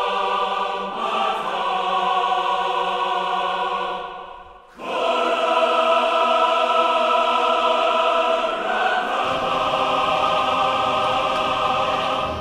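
Music with held, choir-like chords. It fades out briefly about four and a half seconds in, then comes back just as loud.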